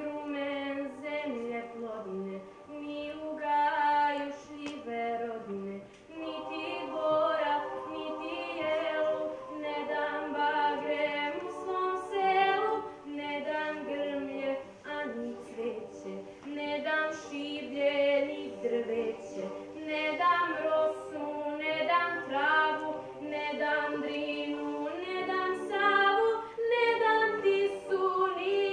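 Children's choir singing unaccompanied, a girl's voice carrying the melody over held chords.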